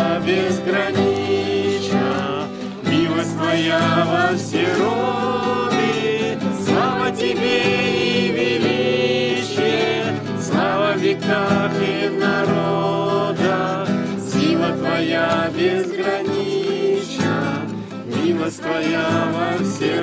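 A small group of voices, men and women, singing a song together to a strummed acoustic guitar.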